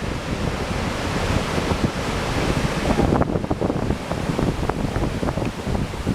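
Ocean surf: large waves breaking and washing in a steady, loud rush, with wind buffeting the microphone in uneven low gusts.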